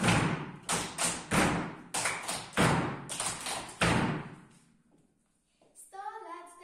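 A rhythmic run of about a dozen thumps, each ringing briefly, that stops about four seconds in. A group of children starts singing near the end.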